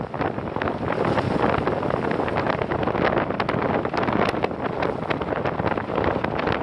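Wind buffeting the microphone of a camera carried on a moving vehicle, a steady rushing noise with frequent crackles, over the vehicle's road noise.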